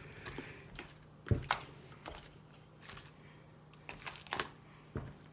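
Handling noise as slime is put away in its container: scattered light clicks and taps, with a few sharper plastic knocks about a second and a half in and again near the end.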